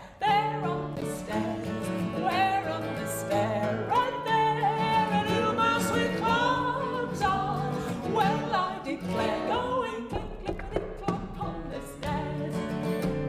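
A woman singing a jaunty sing-along song, accompanied by a strummed acoustic guitar.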